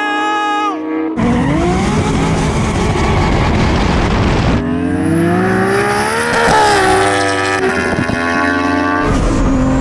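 A turbocharged Toyota Supra and an Aprilia RSV4 superbike at full throttle in a drag race. A steady high engine note for about a second gives way to hard acceleration with the pitch climbing, and about six and a half seconds in the engine note rises to a peak and falls away as they pass.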